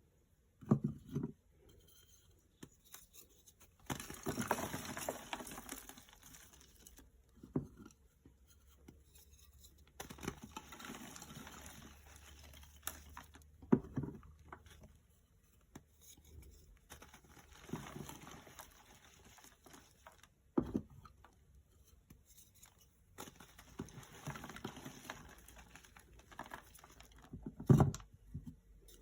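Blocks of gym chalk crushed by hand, crunchy: sharp cracks as pieces snap off, about every six or seven seconds, between spells of dry, powdery crumbling lasting a few seconds each.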